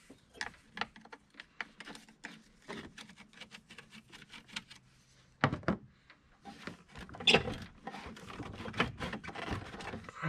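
Irregular clicks, taps and rattles of hands and tools working at a truck's air intake, loosening the hose clamp and pulling the air filter off, with a cluster of louder knocks about five seconds in and more toward the end.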